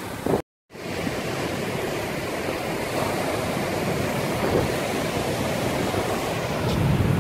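Heavy storm surf breaking on a rocky shore: a steady rushing wash of water, with gusts of wind buffeting the microphone at the start. The sound cuts out completely for a moment about half a second in, then the surf noise carries on evenly.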